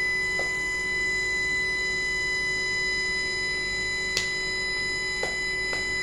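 Induction furnace running with a steady electrical hum made of several high and low tones at once. A few sharp clicks or knocks come through it, the loudest about four seconds in.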